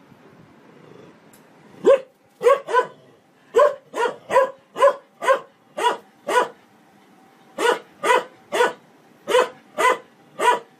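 A dog barking in short, sharp barks at a front-loading washing machine's turning drum, about sixteen barks in two quick runs with a short pause between them.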